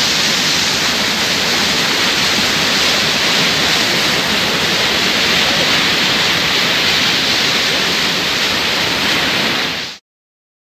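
Waterfall: a loud, steady rush of falling water that cuts off suddenly near the end.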